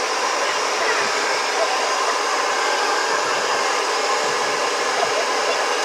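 Handheld hair dryer running steadily, a constant rush of blown air with no change in speed.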